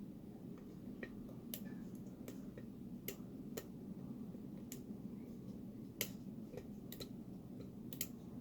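Faint, irregular light metallic clicks of a lock pick working the pin stack inside a padlock's keyway while it is held under tension, about ten small ticks spread unevenly over a low steady hum.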